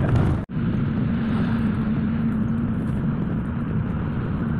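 Steady running noise of a moving road vehicle heard from inside, with a steady low engine hum under the road rumble. The sound drops out for an instant about half a second in.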